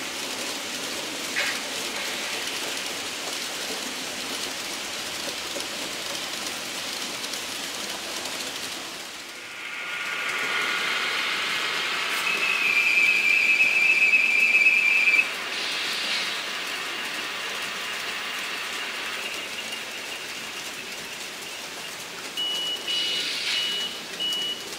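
N-scale model trains running on the layout's track, a steady hiss of small wheels and motors. A loud, steady high whine joins it for a few seconds midway, and a run of evenly spaced short beeps starts near the end.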